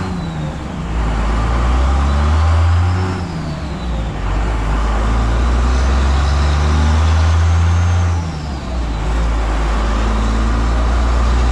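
Grumman truck's engine pulling under load as it is driven, its pitch climbing and then dropping as it shifts, about three seconds in and again about eight seconds in.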